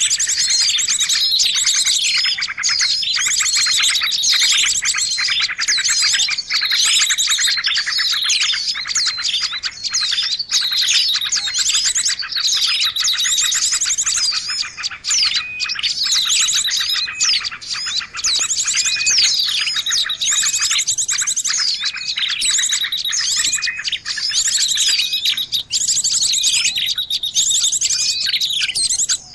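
A dense chorus of many small birds chirping, trilling and calling over one another without a break. It is a noisy lure call meant to draw small birds in.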